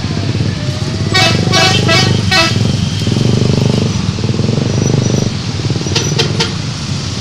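A bus's multi-tone telolet horn plays a quick run of four short, tuned toots about a second in, over a steady engine rumble. Two or three brief high toots follow near the end.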